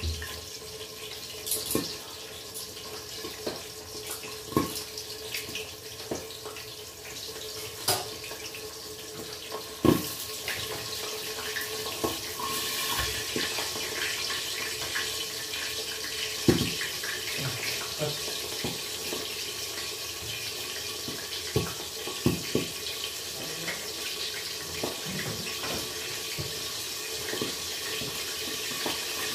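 Milkfish frying in hot oil in a covered pan: a steady sizzle with scattered pops and crackles.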